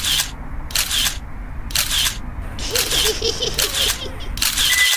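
Camera shutter clicks from a phone, six of them about once a second.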